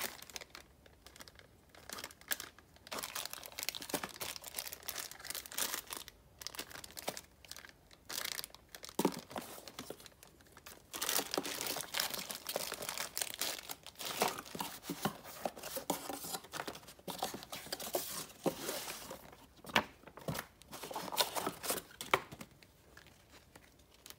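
Plastic bags and paper crinkling and rustling in irregular bursts with short pauses, as hands sort bagged bike parts and booklets in a cardboard box.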